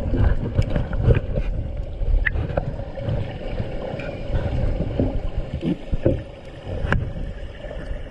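Water rushing and splashing, with knocks and rumbling handling noise on the camera's microphone.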